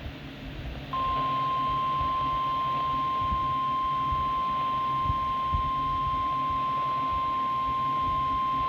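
NOAA Weather Radio 1050 Hz warning alarm tone received on a scanner: one steady, high, unbroken tone starting about a second in. It is the alert that a warning, here a tornado warning, is about to be read.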